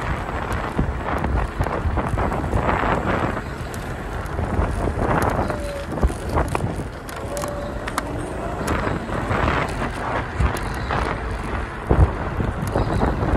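Wind rushing over the microphone of an electric scooter riding along a paved path, with tyre and rattle noise and irregular knocks from bumps. The sharpest knock comes about twelve seconds in.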